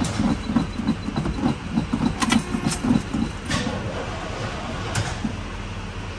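Truck engine being cranked over by its starter with a slow, rhythmic chugging, about three to four pulses a second, without catching; the cranking stops about three and a half seconds in, with a few sharp clicks around it.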